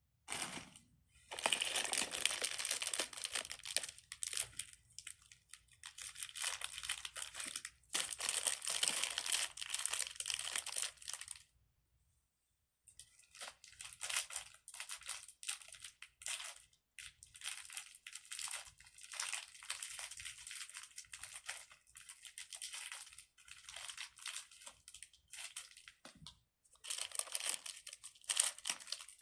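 Plastic crinkling and rustling as fidget toys are handled, in long dense spells for the first ten seconds or so, then in shorter crackly bursts after a brief pause.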